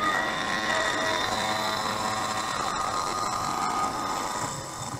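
Home-converted CNC milling machine running a facing program: the spindle turns a face mill with a steady high whine while the table feeds along, the sound easing a little near the end.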